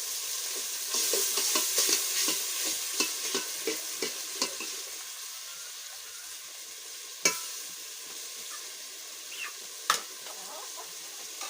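Tomato paste frying and sizzling in a pot while being stirred, with quick scrapes of the spoon against the pot. The sizzling and stirring are loudest in the first four seconds or so, then ease off, with two sharp knocks later on.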